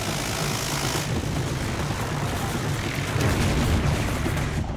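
Minigun firing from a helicopter, with explosions as the target cars are hit: a continuous heavy rumble that swells about three seconds in and changes abruptly near the end.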